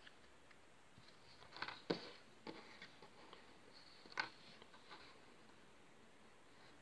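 Faint, scattered taps and clicks of small flat puzzle pieces being handled and set down on a tabletop: a quick cluster about two seconds in, a sharper single tap about four seconds in, and a few lighter ones between.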